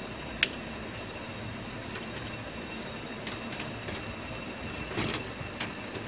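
Clicks and knocks as the desktop computer case's cover is fitted back on: one sharp click about half a second in, then a few softer clicks and knocks near the end, over a steady hiss.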